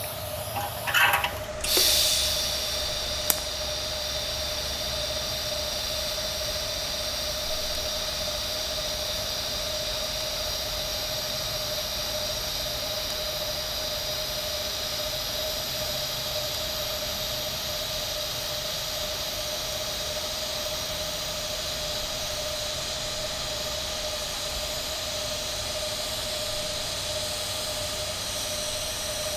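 TIG welding arc on 4130 chromoly tubing: a steady hiss with a constant whine underneath as the bead is run. A few short crackles come as the arc strikes, and the hiss rises sharply about two seconds in.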